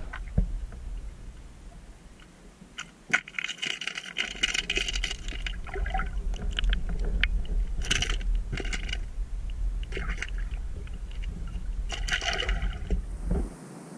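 Sound picked up by a camera submerged in a lake: a steady low underwater rumble with bursts of clicking and rattling every couple of seconds. The rumble cuts off suddenly near the end.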